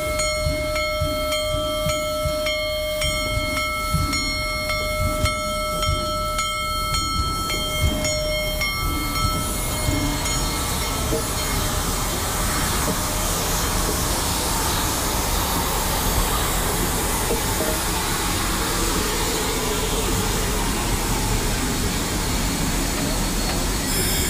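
Union Pacific Big Boy 4014, a 4-8-8-4 articulated steam locomotive, heard at close range: a steady whine of several tones with scattered low knocks for the first nine seconds or so, then a loud hiss of steam building from about ten seconds in.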